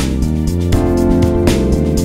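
Instrumental background music with a steady beat and held chords.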